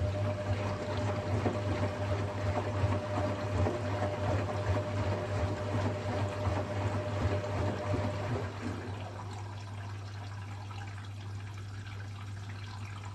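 Hotpoint washing machine filling with water: water rushing and splashing into the drum over a steady low hum. The rush eases about eight seconds in.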